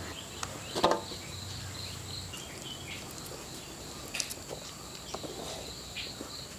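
Outdoor ambience of insects trilling steadily in high, unbroken tones, with a few short clicks and chirps over them.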